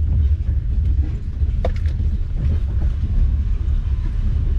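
Steady low rumble of a moving passenger train, heard from inside the carriage, with a single sharp click from the running gear about one and a half seconds in.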